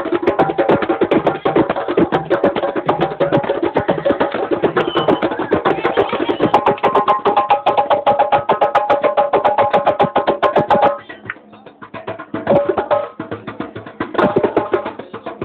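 Live music with fast, busy percussion under a steady melody. The music drops out abruptly about eleven seconds in and comes back only in snatches near the end.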